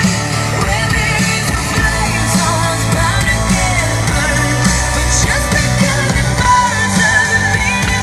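A song with a singing voice over a full band accompaniment with a steady bass line.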